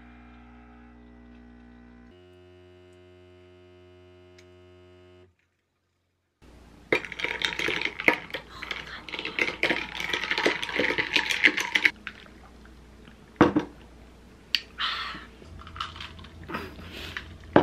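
A capsule espresso machine's pump buzzing steadily for about five seconds, its pitch shifting once. After a short break, a straw stirs an iced latte in a tall glass, with ice clinking and rattling against the glass for about five seconds, then a few scattered clinks.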